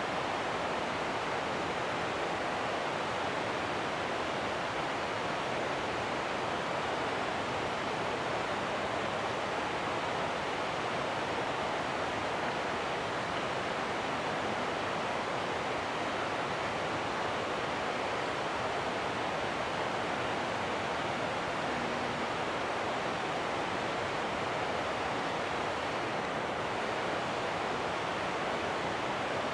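Steady, even rushing of running water, with no change in level throughout.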